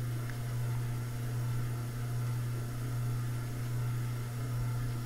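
Steady low hum with a faint even hiss: shop room tone, with no distinct handling sounds.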